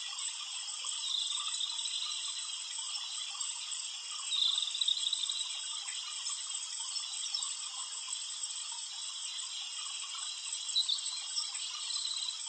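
Light rain falling steadily: an even, high-pitched hiss with no pauses.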